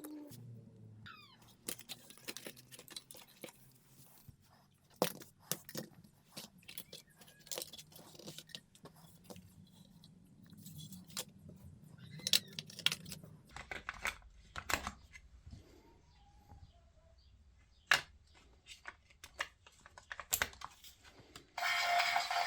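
Scattered clicks and light knocks of a small plastic toy robot's parts being handled and pried apart during a teardown, with a faint low hum through roughly the first half.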